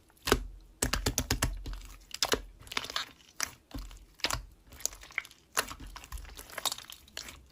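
Slime being pressed and squished by hand, making a quick run of small clicks and crackles.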